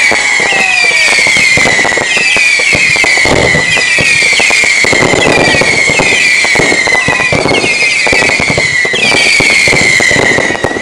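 Volley of whistling fireworks, each a shrill screech falling in pitch, about one a second and overlapping, over continuous crackling and popping.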